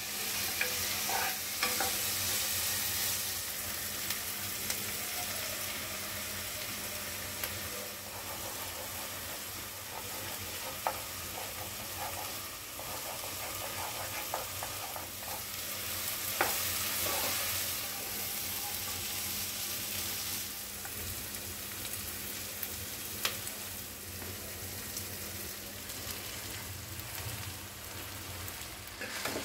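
Diced vegetables, prawns and egg sizzling in hot oil in a non-stick pot, stirred with a wooden spatula that scrapes and knocks against the pot now and then.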